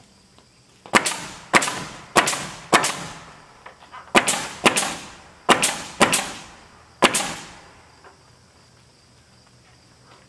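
Nail gun firing nine times into wooden ceiling boards overhead, mostly in pairs a little over half a second apart. Each shot is a sharp crack with a short ringing tail.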